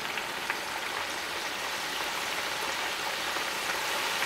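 Turkey pieces deep frying in hot oil: a steady sizzle with fine crackles, just after a breast piece has been added to the oil.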